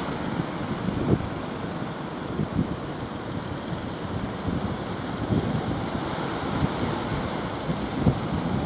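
Wind buffeting the microphone in irregular gusts over the steady wash of breaking surf.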